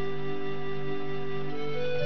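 Background music: a slow melody of long held notes over a steady low drone, stepping up in pitch near the end.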